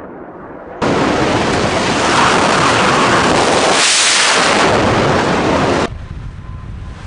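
Loud, steady rushing roar of a Kalibr cruise missile launch heard close up. It cuts in suddenly about a second in, swells in the middle, and stops abruptly about six seconds in.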